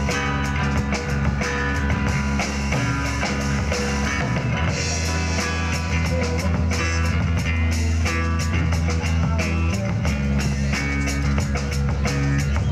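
Live rock band playing: drum kit, electric guitars and bass guitar together, with rapid, regular drum hits throughout.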